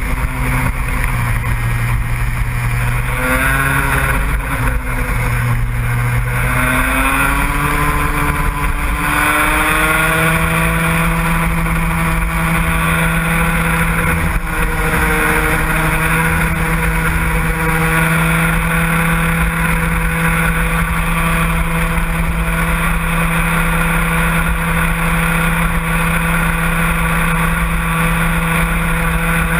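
Vehicle engine running hard. Its pitch climbs, dips briefly, and climbs again over the first ten seconds or so, then holds steady at high revs.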